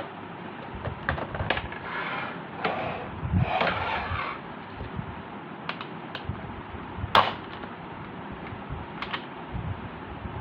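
Toy Nerf blaster being handled: scattered irregular clicks with some rustling, and one louder, sharper click about seven seconds in.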